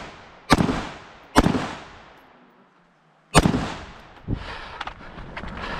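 Three rifle shots, each echoing briefly: two close together, then a third after a pause of about two seconds. A duller knock follows, then a run of light clattering and scuffing near the end.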